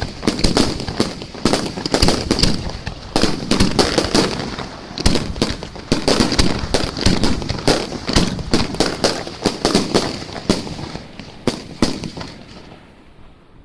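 A fireworks barrage going off in rapid succession: dense sharp bangs and crackling, several a second, that thin out and fade away near the end.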